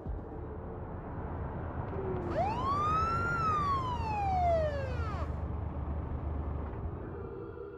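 A police siren gives one wail, rising and then falling in pitch, over a steady low rumble.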